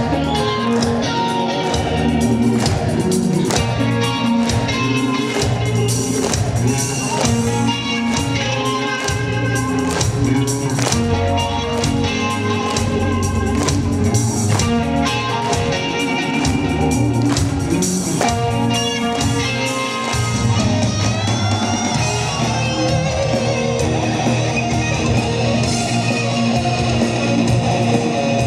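Heavy metal band playing live, with electric guitar leading over bass and drums. Sustained notes carry on throughout, and bent, gliding guitar notes come in the second half.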